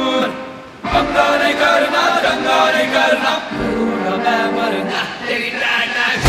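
Song with a group of voices singing together in chorus. It dips briefly just under a second in, then comes back.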